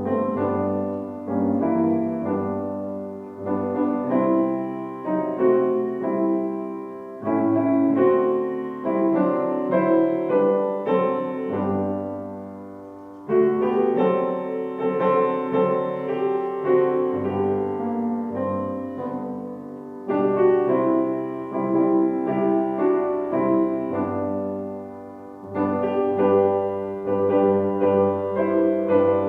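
Solo piano playing a slow, gentle instrumental piece, likely a hymn, with struck notes that ring and fade in phrases.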